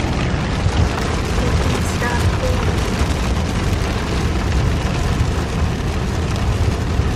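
Steady low rumble and hiss of a car driving in heavy rain, heard from inside the cabin: road, wind and rain noise on the body and windshield.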